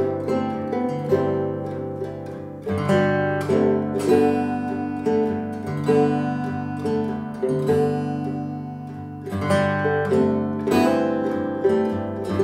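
Two acoustic guitars, one of them a Yamaha FG-140 steel-string, playing together: picked melody notes over held bass notes that change every second or two.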